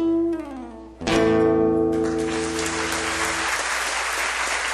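A live samba band ends its song: a held note slides down, then a final strummed chord is struck about a second in and rings out. Audience applause starts about two seconds in and carries on after the chord fades.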